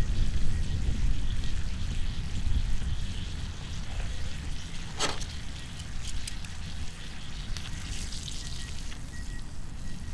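Thick-cut beef tongue sizzling on a hot iron griddle plate over a wood fire, with scattered small crackles and one sharp pop about five seconds in, over a steady low rumble.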